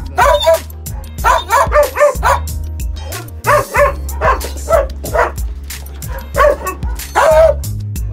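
Hunting dogs barking and yapping in quick runs of short barks, over background music.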